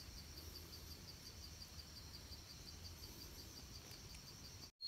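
Faint outdoor ambience with an insect chirping in rapid, even pulses at a high pitch; the sound cuts out completely for a moment near the end.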